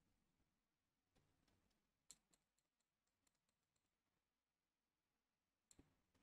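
Near silence: faint room tone with a few scattered computer clicks, a pair of them near the end.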